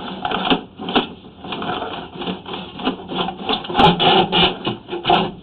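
Sewer inspection camera push cable being hauled back by hand, rasping and rubbing in uneven strokes against the pipe and cleanout. A couple of sharp knocks come in the second half.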